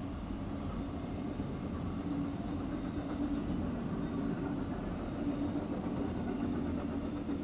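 Steady low rumble of a freight train's double-stack container cars rolling past on the rails, heard from inside a car.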